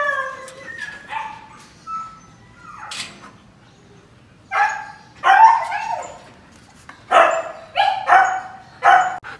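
Siberian huskies barking and yipping in short, pitched calls, a few soft ones early on, then louder clusters about halfway through and again near the end.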